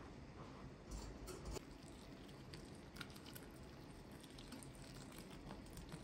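Faint patter and crackle of hot water poured from a kettle onto raisins in a glass bowl, with a couple of soft knocks about a second in.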